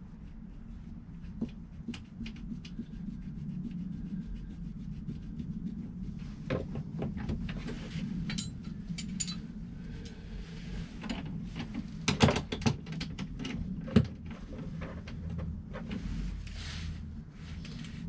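Hand tools and metal scooter parts being handled: scattered clicks, scrapes and rubbing, with a cluster of sharper knocks about two-thirds of the way through and one more shortly after, over a steady low hum.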